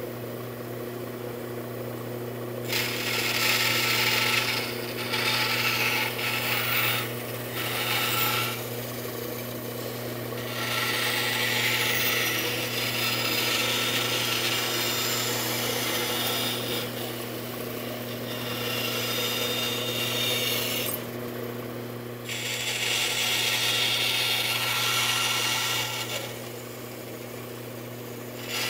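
Bandsaw running with a steady motor hum, its blade cutting a small piece of wood in several passes a few seconds long. The cutting noise rises over the hum and drops back to the hum between passes.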